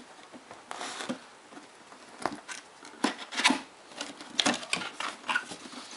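Cardboard box and packaging being opened and handled by hand: scattered light knocks, scrapes and short rustles.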